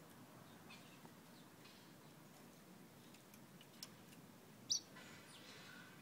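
Caged fire red songbird giving a few faint short chirps, then a sharp high chirp a little before the end followed by a brief twittering phrase.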